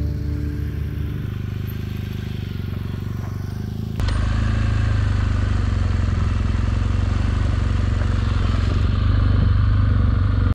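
Adventure motorcycle engine running as the bike rides off on a dirt road. About four seconds in it jumps suddenly louder, heard from on the moving bike with engine and road noise together, then stops abruptly.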